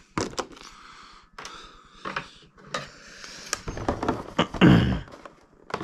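Hands handling toy packaging: light clicks and rustling, with a louder, heavier handling noise about four to five seconds in.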